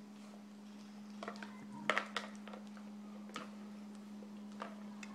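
German Shepherd eating from a plastic bowl: scattered clicks and knocks of muzzle and food against the bowl, the loudest a pair about two seconds in. A steady low hum runs underneath.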